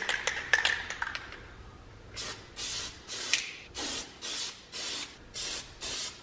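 Aerosol can of Plasti Dip rubber coating sprayed in short, quick spurts, about two to three a second, starting about two seconds in, as a light first coat goes on. A few faint clicks come before the spraying.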